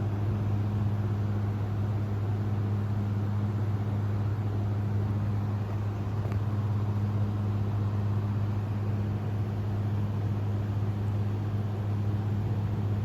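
Steady low machine hum with a faint hiss, unchanging throughout, with no breathing rhythm or snore in it.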